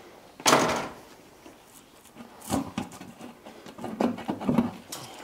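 Knocks and scrapes of heavy metal parts being shifted as the freshly freed oil pan of a Rolls-Royce Meteor tank engine is worked off the crankcase. A sharp knock about half a second in is the loudest, followed by smaller knocks and scrapes twice later on.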